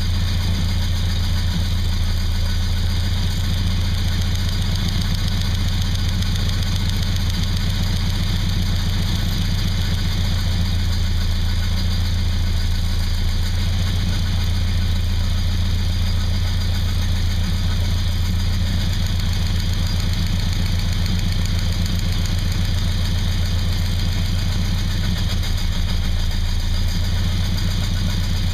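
Chevrolet V8 idling steadily with its rocker arms being adjusted while it runs.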